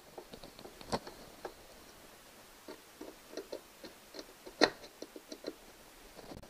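Irregular light clicks and ticks of a screwdriver and small parts against the plastic rudder control handle mount of a kayak, with a sharper click about a second in and the loudest about four and a half seconds in.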